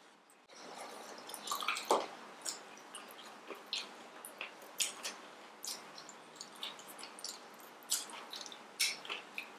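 Close-up eating sounds: wet chewing, lip smacks and squelches of rice soaked in chicken rasam, a string of short irregular clicks with the sharpest about two seconds in and again near the end.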